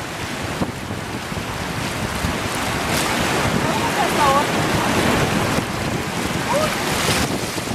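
Rushing whitewater of river rapids mixed with wind buffeting the microphone, a steady rushing noise that swells louder through the middle.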